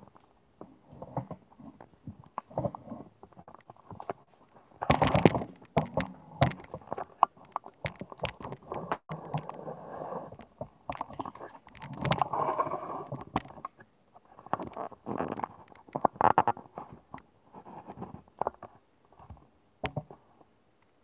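Irregular knocks, clicks and scraping rustles from a handheld camera being moved, with louder bursts about five seconds in and again around twelve seconds.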